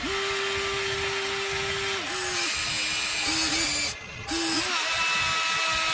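Electric motors of a Huina remote-controlled toy excavator whining as the boom and arm lower and the bucket digs. The steady whine steps down in pitch about two seconds in, breaks off briefly a little before the middle of the fifth second, then starts again.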